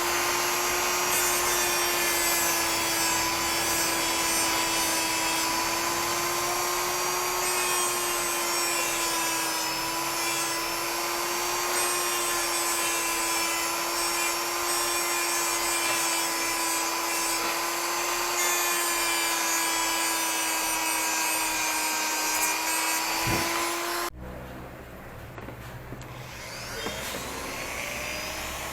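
Electric power tool running steadily, a motor whine with a grinding hiss over it. It cuts off suddenly about 24 seconds in, leaves a quieter rumbling noise, and starts up again right at the end.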